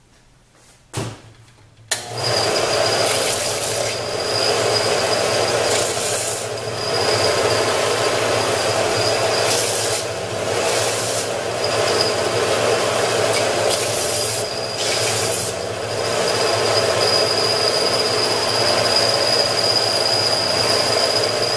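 Central Machinery benchtop belt sander starting up about two seconds in and running steadily, with a constant hum and a thin high whine. A harsher rasp comes and goes every few seconds as a sawn wooden swimbait body is pressed to the belt to sand its cut face flat.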